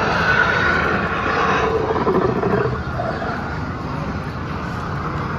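Recorded dinosaur roar from an animatronic Ceratosaurus, played through loudspeakers. It drops lower about two seconds in, then gives way to steady background noise.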